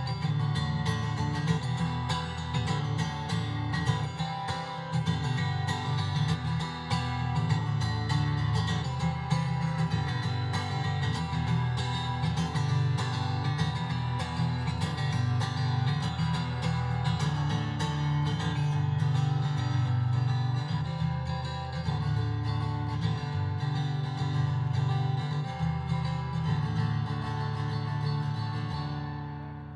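Music led by a strummed acoustic guitar, with a steady bass line and no singing; it fades out near the end.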